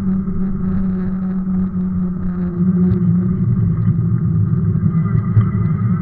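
Steady low rumble of a Sondors electric fat bike's fat tyres and frame rolling over cracked asphalt, picked up by a camera mounted on the bike. About halfway through, the rumble turns rougher and more jolting as the pavement breaks up into potholes.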